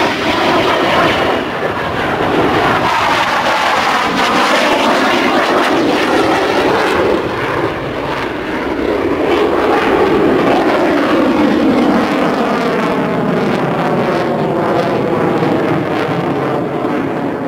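Boeing F/A-18 Hornet jet engines in a loud, continuous pass overhead, the tone sweeping slowly up and down as the jets fly by.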